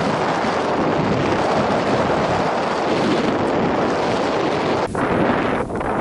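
Steady rush of wind buffeting an action camera's microphone as a snowboard ploughs through deep powder snow, with a brief drop about five seconds in.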